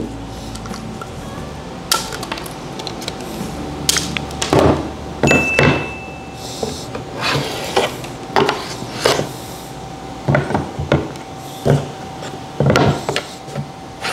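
Star-M hand edge trimmer shaving excess PVC edge banding off a board edge in quick repeated strokes: a run of short, sharp scraping knocks and clicks at uneven intervals.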